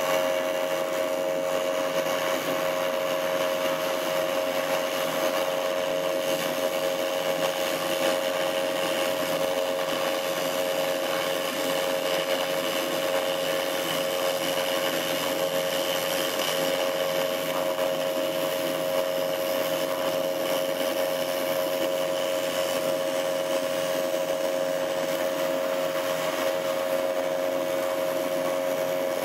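AC TIG welding arc on aluminum from a Miller Dynasty inverter welder: a steady, unbroken buzz with a hiss, as one continuous bead is laid.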